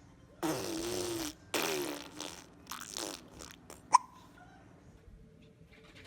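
A baby hiccuping once, a short sharp squeak about four seconds in. Before it, in the first two seconds, come two longer noisy sounds with a wavering pitch.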